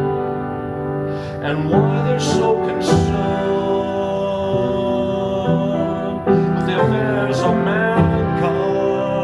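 Slow piano music, with a singing voice in places.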